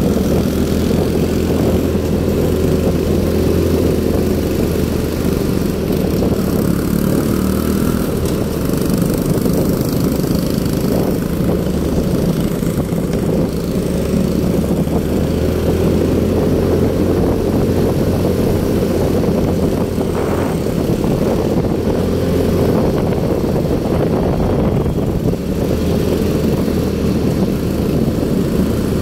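Motorcycle engine running steadily at cruising speed, heard from the rider's own bike as a continuous low hum with little change in pitch.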